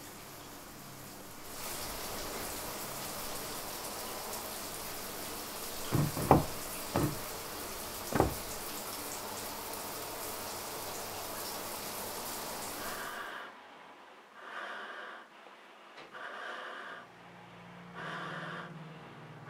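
A loud, steady rushing hiss with a few sharp knocks in the middle, which cuts off suddenly. It is followed by slow, rasping breaths drawn through a full-face gas mask respirator, about one a second.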